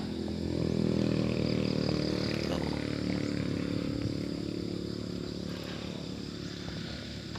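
A motor vehicle's engine running at a steady pitch as it passes, loudest about a second in and then slowly fading away.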